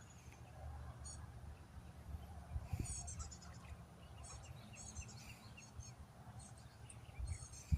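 Small birds chirping in short runs of rapid high notes every second or two, over a low steady rumble.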